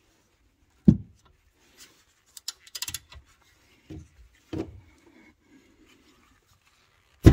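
Hands and tools handling at a car's rear brake caliper: a few dull knocks, about a second in, near five seconds and again at the end, with rubbing between and a short run of quick clicks about three seconds in.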